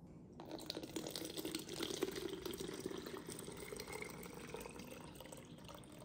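Dark liquid poured from a glass jar through a plastic funnel into a plastic squeeze bottle: a thin, trickling stream that starts about half a second in and slowly fades.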